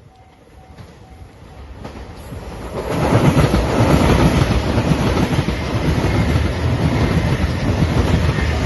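A JR Shikoku 2700-series diesel train passes over a level crossing. Its rumble builds over the first three seconds, then it goes by loudly with wheel rumble and the clickety-clack of wheels over the rail joints. A level-crossing warning bell dings evenly and faintly at the start and is soon drowned out.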